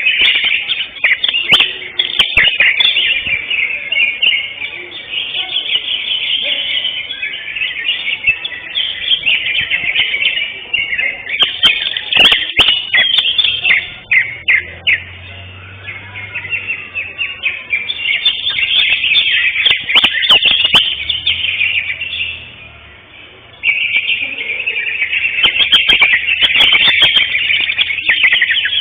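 Caged greater green leafbirds (cucak hijau) singing in a songbird contest: a dense, rapid stream of chirps and trills, dipping briefly about halfway through and pausing for a moment about three-quarters of the way in.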